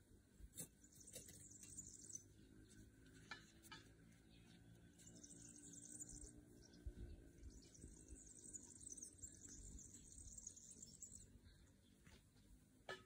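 Near silence: faint garden ambience with quiet, high-pitched chirping in three stretches, and a few soft clicks.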